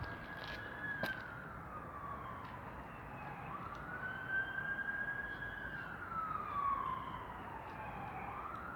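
Ambulance siren wailing: a single tone that rises, holds high for a second or two, then falls slowly in pitch before rising again, in cycles of about four to five seconds.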